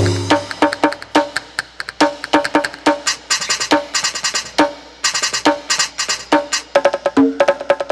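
Aroma TDX15S electronic drum kit playing its percussion-kit voices: pads struck in quick patterns, giving short pitched knocks in two or three pitches. Dense, bright rattling runs come in around three and five seconds in.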